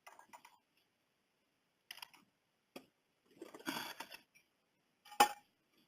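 Camp mess kit being unfastened at its twist nut and bracket and pulled open: small scattered clicks and a short scraping, rattling stretch, with one sharp click about five seconds in.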